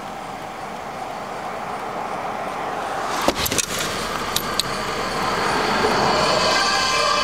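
Steady car noise that grows louder, broken by a few sharp clicks around the middle. Light-show music starts to come up near the end.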